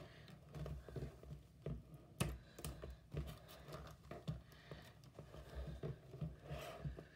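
Scissors snipping through a stiff plastic blister pack, with irregular clicks and crackles of the hard plastic as it is cut and handled, one sharper click a little over two seconds in.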